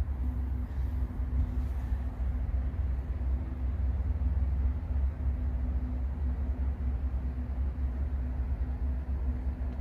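Steady low machine rumble with a faint constant hum, unchanging throughout.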